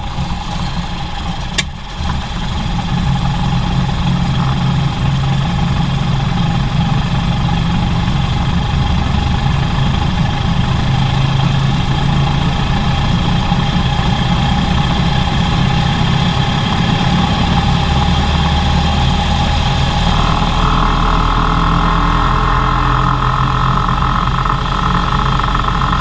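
Ford Model A's four-cylinder flathead engine running steadily, with one sharp pop about a second and a half in, from a fuel mixture run lean by a clogged fuel line. The engine's note changes around twenty seconds in.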